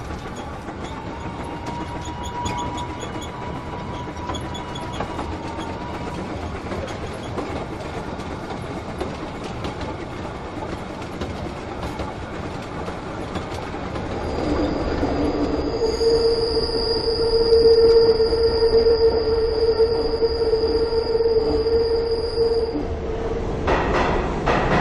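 Train running on rails with a steady rumble. About halfway through a sustained high wheel squeal rises over it and cuts off sharply near the end.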